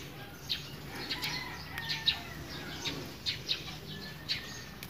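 Soft rustling and small snaps as bilimbi (kamias) fruit are pulled off the tree by hand, with scattered short high bird chirps throughout and a faint low hum underneath.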